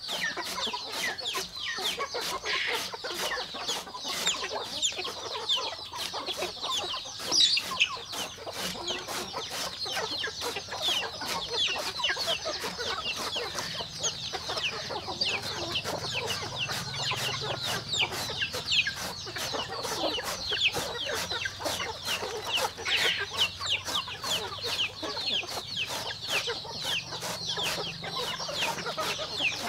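A flock of chickens calling all at once: a dense, unbroken chorus of many short, high peeps and clucks.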